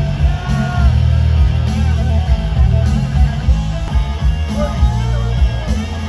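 Loud rock music with electric guitar and a heavy bass beat.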